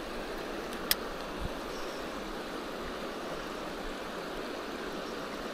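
Steady rush of a shallow, rocky river flowing over stones, with a single sharp click about a second in.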